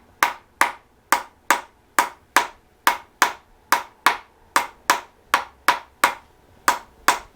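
Tok sen wooden hammer striking a wooden wedge held against the body: a steady run of sharp wooden taps, a little over two a second.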